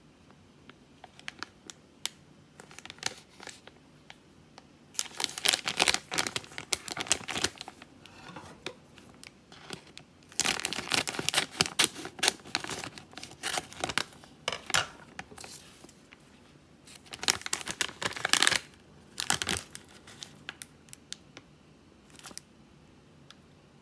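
Cough drop packaging being torn open and crinkled by hand: several spells of crackling rustle, each one to a few seconds long, with small clicks and taps between them.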